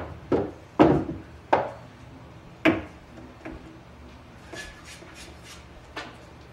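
Pool cue and balls knocking on a pool table: four sharp clacks in the first three seconds, then a few lighter scraping clicks and one last click near the end.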